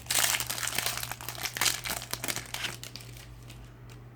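Foil trading-card packet crinkling as it is handled and torn open, for about three seconds before dying down.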